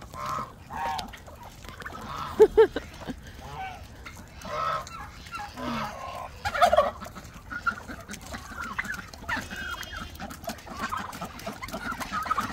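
A mixed flock of farm poultry (geese, ducks, turkeys and chickens) calls over one another, excited at feeding time. About two and a half seconds in, two loud calls come close together.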